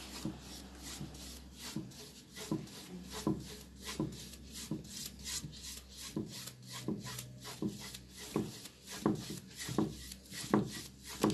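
A stiff paintbrush scrubbing back and forth over a painted box in quick short strokes, about three a second. This is dry-brushing metallic gold paint onto the raised relief so that the pattern stands out.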